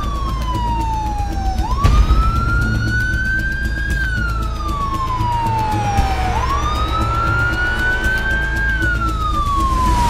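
Emergency vehicle siren wailing in slow sweeps, each rise and fall taking a few seconds, over a steady low rumble, with a knock about two seconds in.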